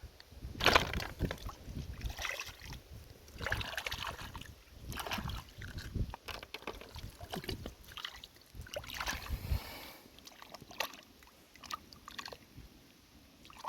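Wet mud and water squelching and sloshing in irregular bursts, with a few sharp clicks, as hands dig through mud for clams.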